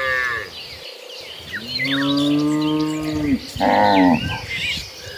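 Cattle mooing: one call trailing off just after the start, a long low moo about a second and a half in, then a shorter, louder one about a second after it. Birds chirp faintly behind.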